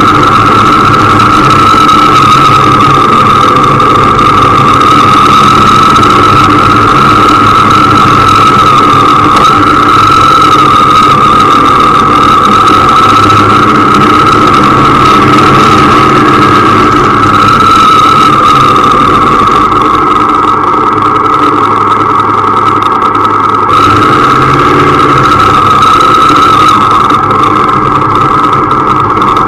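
A vehicle's engine running steadily while driving, with a constant whine over a low hum. The sound eases slightly about two-thirds of the way through.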